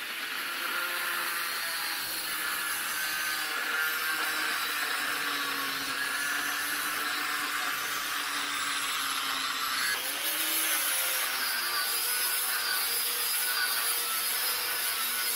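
Angle grinder with an abrasive cutoff wheel cutting through cast iron: a steady, loud grinding hiss over the motor's whine.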